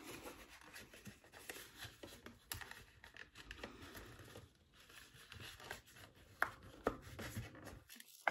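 Faint handling noises from small beauty-box items and packaging: scattered light clicks and rustles over a low hum, with a brief gap of silence near the end.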